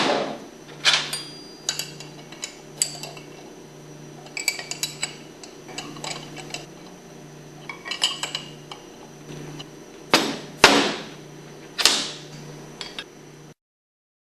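Metal wrench clicking and clinking on the steel bolts of a pump flange as they are tightened down. The clicks come in short quick runs, with a few louder metallic knocks near the end.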